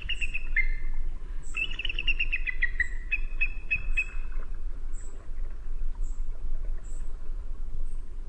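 A songbird singing: quick runs of clear notes that step down in pitch, ending in a few repeated notes about halfway through, over a steady low rumble.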